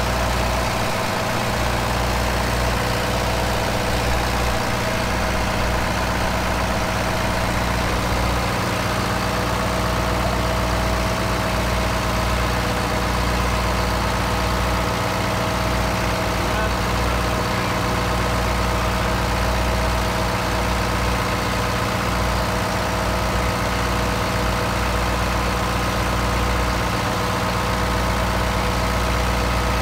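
Marine inline diesel engine running steadily at a constant speed, heard close up in the boat's engine room: an even low drone that holds without change.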